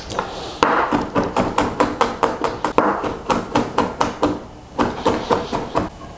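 Chef's knife chopping on a cutting board: a rapid, even run of sharp knocks as the blade minces, starting about half a second in and stopping just before the end.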